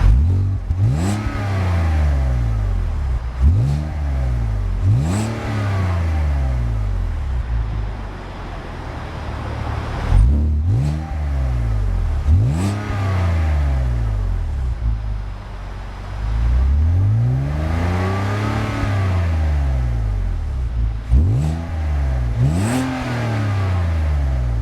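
A 2006 BMW 330ci ZHP's 3.0-litre inline-six being revved, with a prominent exhaust note. There are about eight quick throttle blips, each rising in pitch and dropping back to idle. About three-quarters of the way through comes one longer, slower rev.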